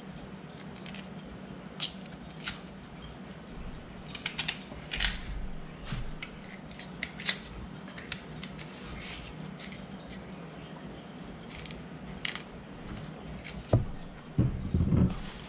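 Kitchen knife scraping and cutting the thick brown skin off a cassava root, in short, irregular scrapes and clicks over a steady low hum.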